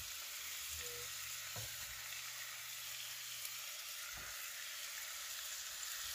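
Shallots, garlic and cubed raw chicken sizzling in sesame oil in a nonstick skillet as the chicken is slid in off a plate, a steady frying hiss with a few soft knocks.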